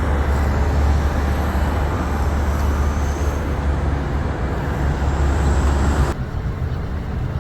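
Road traffic noise with a heavy, steady low rumble of passing vehicles. It drops off abruptly about six seconds in.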